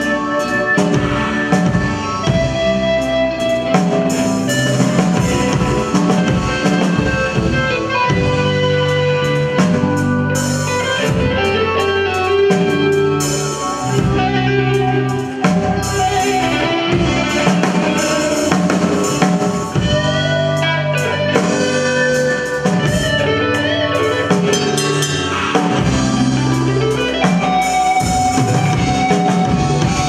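Live band playing a slow rock ballad: drum kit, bass, electric and acoustic guitars and stage piano, with a lead line that slides between notes.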